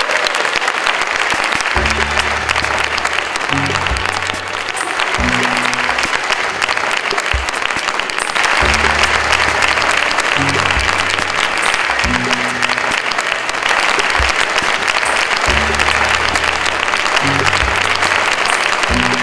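An audience applauding over background music that carries a repeating bass line. The applause gets louder about eight seconds in.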